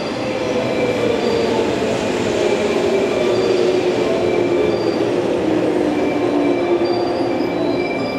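JR West 115 series electric train pulling out of the platform, its cars rolling past with a steady rumble of wheels on rail and a motor whine that slides a little lower as they go by. Brief high wheel squeals come and go.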